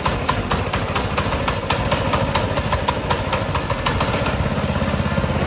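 Brand-new Harbor Freight Predator 224 single-cylinder four-stroke engine running steadily on a go-kart frame, with an even, regular firing beat.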